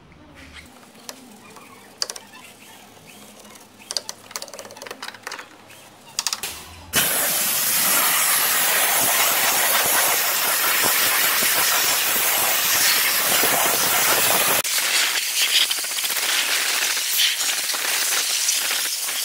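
Soft brush scrubbing with scattered light clicks. About seven seconds in, a MONAIR steam cleaner's jet of steam and hot water cuts in with a loud, steady hiss against the engine bay. The hiss thins slightly after about fifteen seconds.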